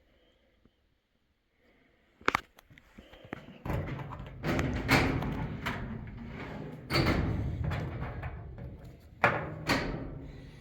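A door being handled: a sharp latch click, then a loud rattling stretch with four heavy bangs as the door is shaken and slammed.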